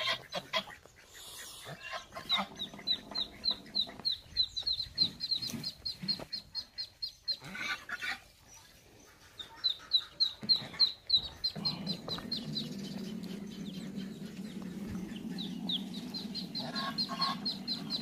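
Ducklings peeping: runs of rapid, short, high peeps, each falling slightly in pitch, several a second, in three bouts with short gaps. A steady low hum joins about two-thirds of the way through.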